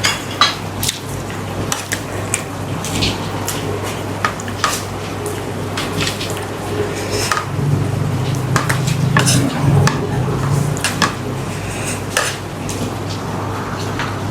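A metal spoon or ladle clinking and scraping against a cooking pot while stirring, in irregular sharp knocks over a steady low hum.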